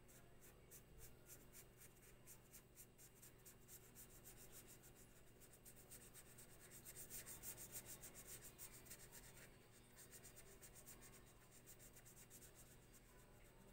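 Faint scratching of a felt-tip highlighter shading back and forth on notebook paper, about four quick strokes a second, a little louder in the middle.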